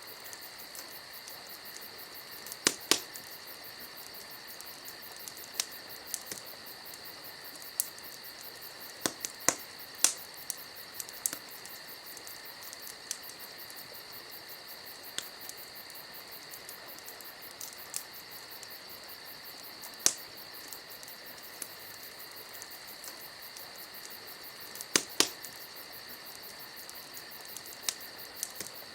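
Campfire crackling, with sharp pops of burning wood every few seconds, the loudest ones about 3, 10 and 25 seconds in. Under it, a steady high trill of insects.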